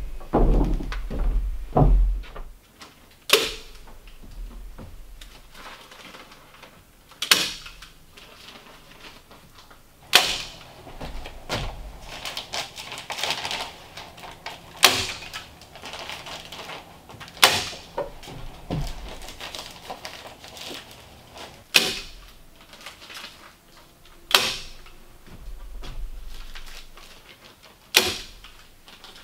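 Hands-on building work over open floor joists: a board is handled with heavy low thuds in the first two seconds, then sharp knocks come about every three seconds with rustling between them as fibreglass insulation batts are fitted between the joists.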